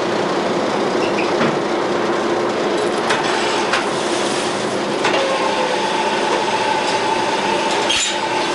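Bronze-melting crucible furnace running: a steady rushing noise with a low hum, broken by several sharp metal clanks from foundry tools.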